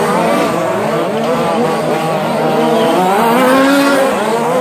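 Several radio-controlled short course trucks racing together, their motors rising and falling in pitch as they speed up and slow down through the corners.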